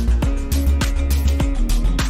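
Background music with a steady beat of about three strikes a second over a strong bass line.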